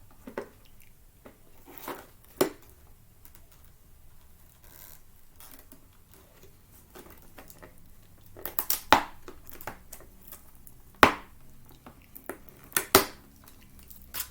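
Product packaging being handled and pried open by hand: a series of separate sharp clicks and knocks, sparse at first, with the loudest in a cluster past the middle and near the end.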